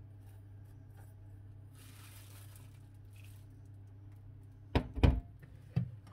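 Sugar sliding from a glass bowl into a glass mixing bowl, a soft hiss about two seconds in, over a faint steady low hum. A few loud knocks and clunks follow near the end as a plastic electric hand mixer is picked up from the counter.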